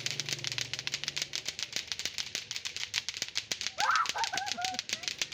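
Latto-latto clackers, pairs of hard plastic balls on strings, knocking together in fast clacks from several players at once, out of step with each other. A girl laughs briefly about four seconds in.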